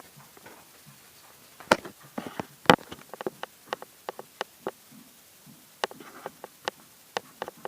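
Liquid from a condenser dripping into a container: irregular sharp drip clicks, about two or three a second, the loudest nearly three seconds in.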